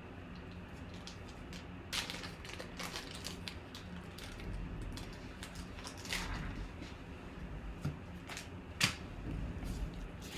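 Quiet, irregular light clicks and rustling, with a few sharper clicks about 2, 6 and 9 seconds in.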